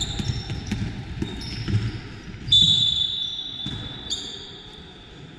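Basketball game play: a ball bouncing and footfalls on the court in the first couple of seconds, then two long, high sneaker squeaks on the floor about two and a half and four seconds in, the first the loudest.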